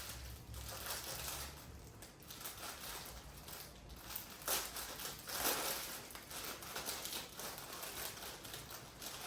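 Packaging rustling and crinkling in irregular bursts as items are handled and unwrapped, loudest about halfway through.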